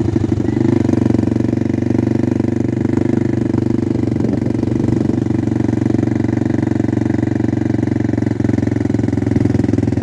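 Small ATV engine running steadily, heard from the rider's seat as the quad rolls slowly across sand.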